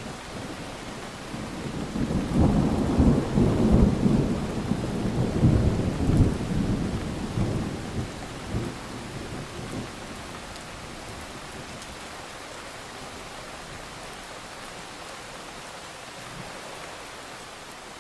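Thunderstorm: a long roll of thunder swells about two seconds in, rumbles loudest for several seconds and fades away by about ten seconds, over steady rainfall that carries on alone afterwards.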